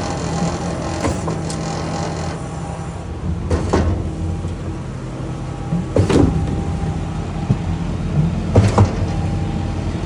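Putzmeister concrete line pump running steadily with its hopper vibrator switched on, a steady mechanical drone. A few sharp knocks come about two or three seconds apart, the loudest about six seconds in.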